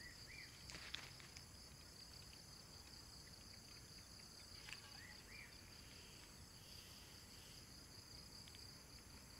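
Faint, steady insect chorus, a high pulsing trill like crickets, with two short chirps, one near the start and one about five seconds in, and a few soft clicks.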